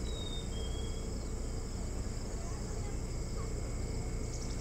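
Steady chorus of crickets trilling in a constant high band over a low steady rumble, with two short high chirps in the first second.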